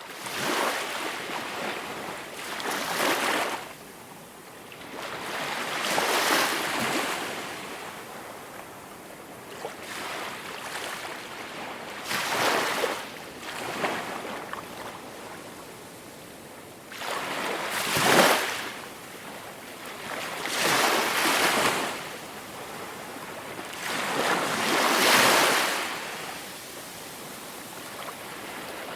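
Ocean waves breaking and washing in, swelling into a loud surge every few seconds over a steady hiss of surf.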